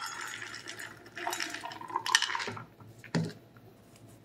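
Dry roasted peanuts pouring and rattling into a metal measuring cup, followed by a few scattered rattles and a single knock about three seconds in.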